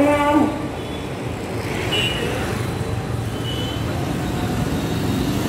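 Street traffic: a steady rumble of vehicle engines and road noise, with two short high-pitched tones, one about two seconds in and one about a second and a half later. A pitched sound carried over from before cuts off about half a second in.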